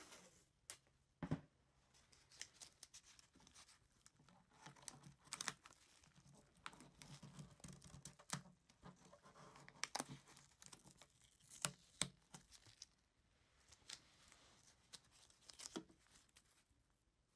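Blue painter's tape being pressed onto and peeled off a guitar pickup's metal pole pieces and cover by gloved hands, lifting steel wool dust: faint sticky crackling and peeling, with many scattered sharp ticks.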